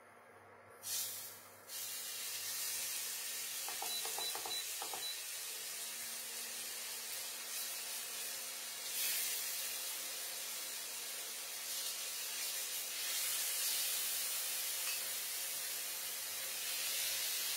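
Marinated chicken pieces sizzling as they go into oil at medium heat in a nonstick frying pan. The hiss starts suddenly about a second in and swells again as more pieces are added.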